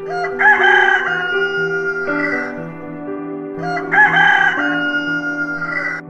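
A rooster crowing twice, each crow about two seconds long, with background music underneath.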